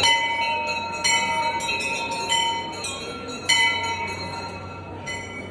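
Temple bell struck about five times, a second or so apart, each strike ringing on and fading, over a low crowd murmur.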